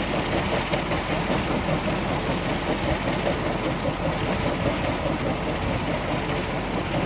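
Small wind turbine spinning fast, its blades making a steady whirring with a fast, even beat that sounds like a helicopter.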